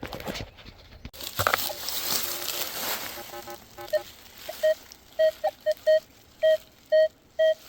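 About three seconds of rustling, scraping handling noise, then a metal detector sounding a target: a few beeps at mixed pitches, then a run of short beeps at one mid pitch, about two a second, the sign of buried metal under the coil.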